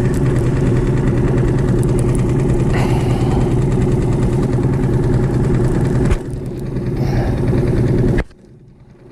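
Boat's outboard motor running steadily at trolling speed, a low, even hum. It drops away abruptly about eight seconds in.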